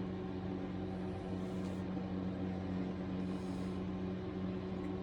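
A steady low electrical hum, with two brief soft hisses, one about a second in and one past the middle.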